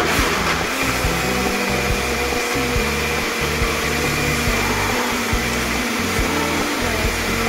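Russell Hobbs personal tumbler blender running, its motor whirring steadily.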